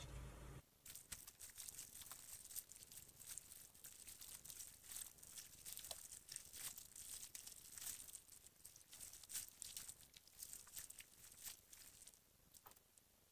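Fingers pressing and patting homemade borax slime mixed with glitter and heart-shaped confetti, making faint, dense, irregular crackling with small clicks and pops. The crackling thins out near the end.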